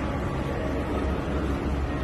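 Steady low rumble and hiss of background noise, with no distinct event standing out.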